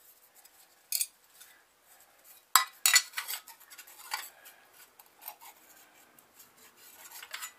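Metal timing cover plates being handled and fitted over an A-series engine's cam drive pulley: scattered light metallic clinks and clatters, the loudest about two and a half to three seconds in, with smaller taps near the end.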